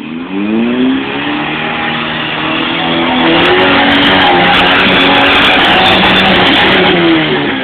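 Four-cylinder 4x4 engine revved hard under load as it climbs a muddy rock ledge: the revs rise in the first second, hold high and loud for several seconds, then drop near the end.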